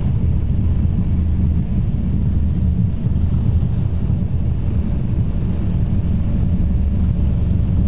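Steady low rumble inside a commuter jet's cabin as the plane rolls along the runway after landing: engine noise mixed with the rumble of the wheels on the pavement.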